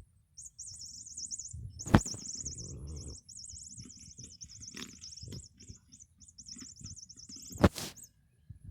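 A cat toy chirping in a high, fast-warbling birdlike trill that stops near the end, with two sharp knocks about two seconds in and near the end as the toy is batted about, and soft thumps and rustling between.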